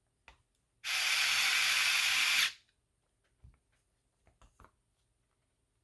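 A pen-style cordless electric screwdriver runs steadily for about a second and a half, driving a screw into 3D-printed plastic parts; then a few faint knocks of the plastic parts being handled.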